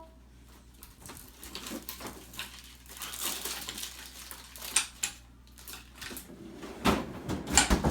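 Irregular taps, clicks and rustles of small objects and containers being handled on a tabletop, with a louder spell of handling near the end.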